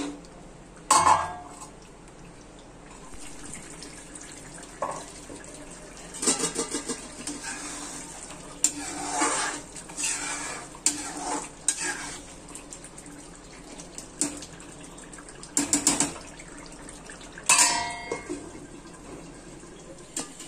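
Metal spoon scraping and clinking against a steel kadai as chicken kofta are stirred through a thick masala, in short bursts every few seconds over a steady low hiss.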